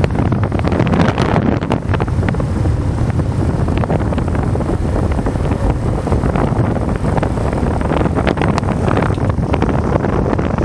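Wind buffeting the microphone on a moving motorcycle: a steady, loud rush with frequent crackles, with engine and road noise underneath.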